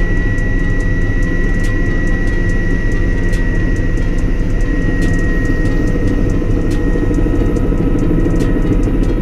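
Bell 206L-1 LongRanger II helicopter in flight, heard from inside the cockpit: the Allison turboshaft engine and rotor system running with a dense, steady rumble and a high whine held over it.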